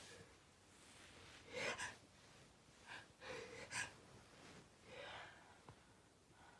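A person with a cold taking short, faint, breathy gasps and sniffs, about four of them spread over a few seconds.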